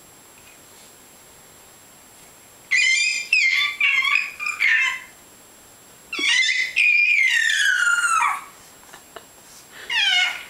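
Five-month-old baby squealing in high-pitched bursts: a run of short squeals about three seconds in, a longer squeal from about six seconds that slides down in pitch, and another starting near the end.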